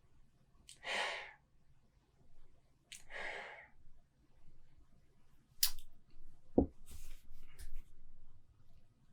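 Two sniffs through the nose, about two seconds apart, followed by a sharp click, a dull knock and a few lighter clicks.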